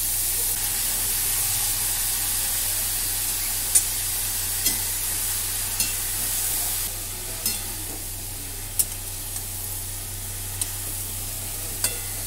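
Chopped mushroom pieces sizzling as they fry in hot oil in a metal kadhai, stirred with a spatula that clicks and scrapes against the pan now and then. The sizzle eases slightly about seven seconds in.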